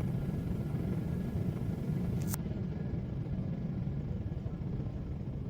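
Steady low rumble of an airliner cabin in flight, with a brief click about two seconds in.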